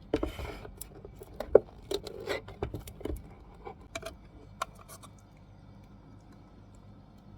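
Small objects being handled: a quick run of clicks, taps and light knocks with some rustling, dying away about five seconds in.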